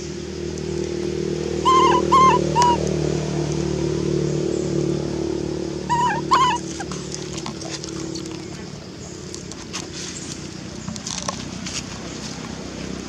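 Baby macaque giving short, high squeaking calls, three in quick succession about two seconds in and two or three more about six seconds in, over a steady low hum.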